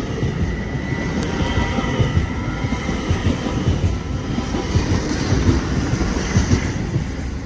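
Train running past, its wheels rumbling and clattering on the rails, with a faint high squeal in the first couple of seconds; the rumble eases slightly near the end.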